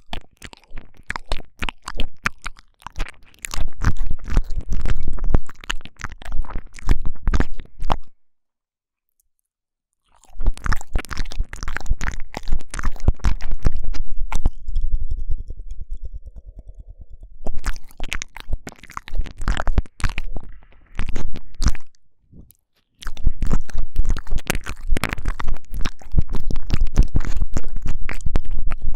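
Intense close-up wet mouth sounds into a binaural microphone's ear ("ear eating"): dense tongue clicks, smacks and licking crackles in long runs. The sound stops dead for about two seconds after roughly eight seconds, with a shorter pause near twenty-two seconds.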